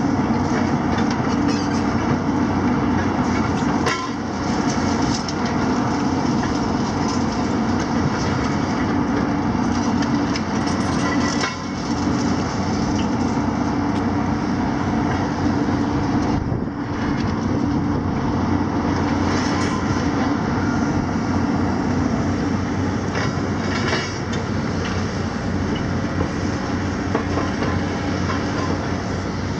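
JCB and Hitachi demolition excavators working: diesel engines running steadily under load, with crunching, scraping and clanking of concrete and metal debris as their grabs and shears work the rubble.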